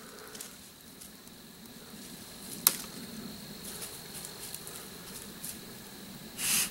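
Quiet movement over dry leaf litter, with a single sharp click a little under three seconds in and a short, louder rustle near the end. A faint steady high tone runs underneath.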